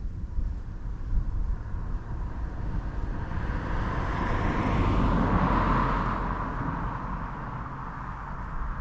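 A vehicle passes by, its noise swelling to a peak about five seconds in and then fading, over a steady low rumble of wind on the microphone.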